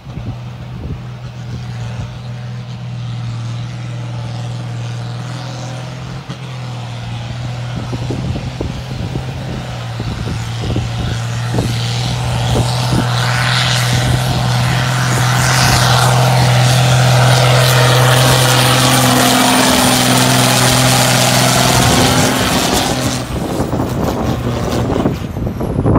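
Ford four-wheel-drive tractor's diesel engine labouring hard under load as it pulls a loaded dump trailer up a gravel hill. It grows steadily louder as it approaches, passes close by near the end, and is cut off abruptly.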